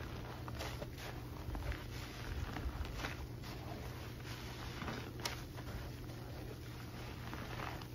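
Soapy sponges being squeezed and pressed by rubber-gloved hands in sudsy water: a run of irregular wet squelches and squishes, with the sharpest squeeze about five seconds in.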